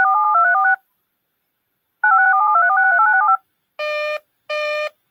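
Two quick runs of touch-tone (DTMF) dual-tone beeps from an emergency alert broadcast system, each about a second long with a short gap between them. They mark the hand-off from one alert to the next. About four seconds in, a separate series of short, evenly spaced electronic beeps begins, two of them in quick succession.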